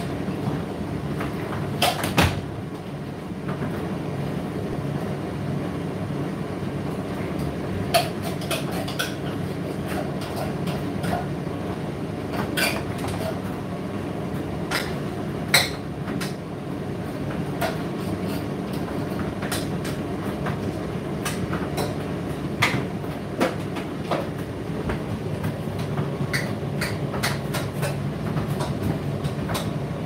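Indesit IDC8T3 8 kg condenser tumble dryer running mid-cycle: a steady motor and drum hum, with irregular sharp clicks and knocks from the load tumbling in the drum.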